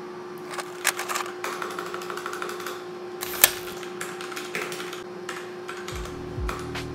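Typing on a compact backlit mechanical keyboard: a quick, irregular run of key clacks, with one sharper, louder keystroke about halfway through.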